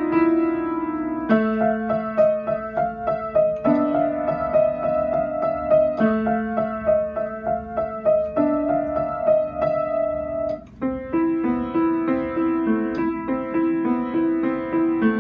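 Keyboard music: sustained chords changing every couple of seconds under a repeated melodic figure, with a brief pause about ten and a half seconds in.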